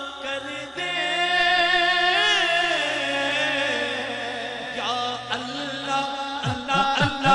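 A man singing a Punjabi naat, holding long ornamented notes with a wavering vibrato, while a lower voice holds notes beneath him. Near the end a quick, regular low pulsing sets in, about two beats a second.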